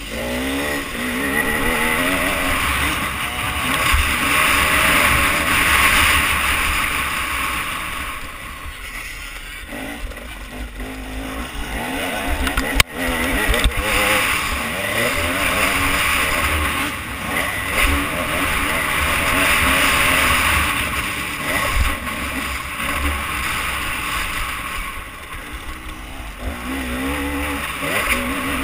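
Motocross dirt bike engine revving hard and falling back again and again through the gears, heard from a helmet camera with a constant rush of wind and rumble on the microphone. One sharp knock about halfway through.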